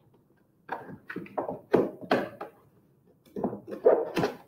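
Cardboard box being closed by hand: its flaps folded down and the tuck tab pushed into place, in short rustles and knocks that come in two spells, about a second in and again near the end.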